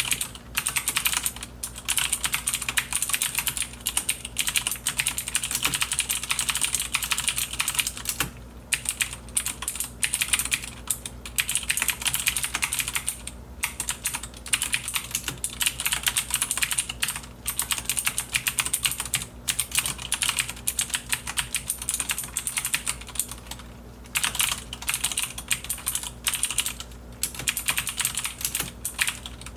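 Continuous fast typing on a Logitech G610 mechanical keyboard with Cherry MX Blue switches: dense crisp clicking, with the keycaps bottoming out, broken by a few short pauses.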